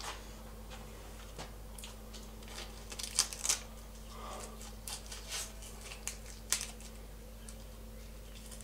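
Adhesive sheet being peeled and torn off a lint roller: scattered crackles and short tearing sounds, loudest about three seconds in and again past six seconds.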